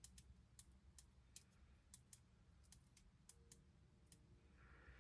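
Faint, irregular small clicks and ticks over a low room hum: small RC shock parts and springs being handled on a bench.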